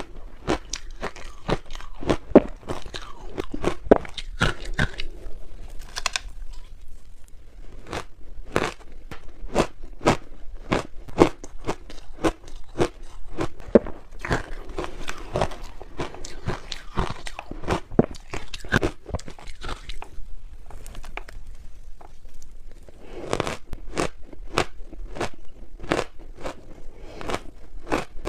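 Close-up crunching and chewing of frozen ice: a dense run of sharp, irregular crackles as the ice is bitten and ground between the teeth, with a few short pauses between mouthfuls.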